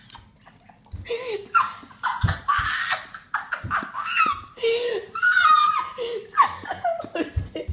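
A person laughing in repeated bursts, with a few dull low thumps among them.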